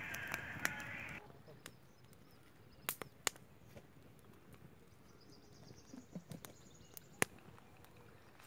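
Wood fire crackling over embers, with a few scattered sharp pops. Background music cuts off about a second in.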